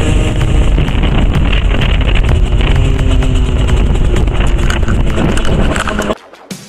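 CPI SM 50's 50 cc two-stroke engine, fitted with an SCR aftermarket exhaust, running under way, with heavy wind buffeting on a handlebar-mounted camera. The sound cuts off abruptly about six seconds in.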